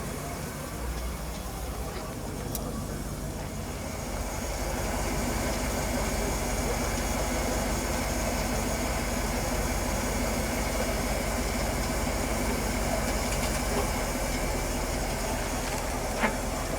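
1988 Rolls-Royce Corniche II's 6.75-litre V8 and road noise heard from inside the cabin while driving: a steady rumble that grows a little louder about four seconds in. A sharp click near the end.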